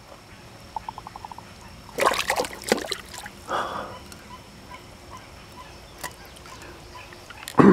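Water splashing and sloshing as a hand grabs a hooked flathead catfish at the water's edge. The loudest burst of splashes comes about two seconds in, with a smaller one a second later.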